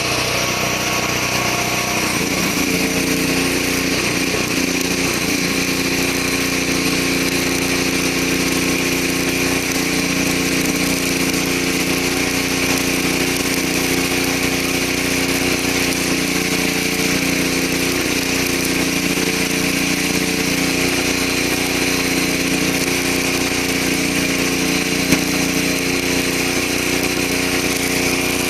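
Engine of an engine-driven CO2 welding generator running steadily. Its pitch shifts about two seconds in, then holds.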